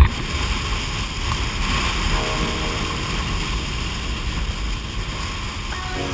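Strong wind buffeting an action camera's microphone, a steady low rumble, with water rushing and hissing underneath. A sharp click comes right at the start.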